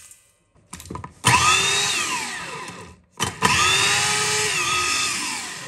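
Small electric meat grinder (chopper) run in two bursts, grinding dry-toasted Sichuan peppercorns and salt to powder. Each burst starts abruptly with a loud motor whine that rises briefly, then slides down in pitch as the motor slows.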